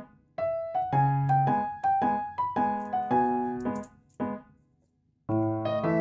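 Background piano music: a gentle melody of single notes and chords, breaking off for about a second near the end before the next phrase comes in.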